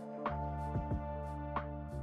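Background music: sustained chords over a steady beat.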